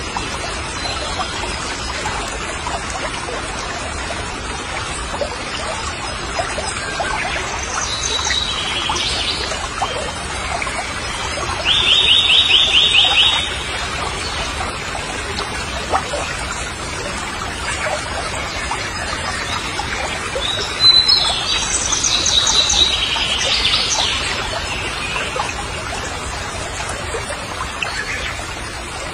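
Outdoor ambience: a steady hiss like running water, with bird chirps. A rapid trill lasts about a second and a half near the middle, and more chirping comes a little later.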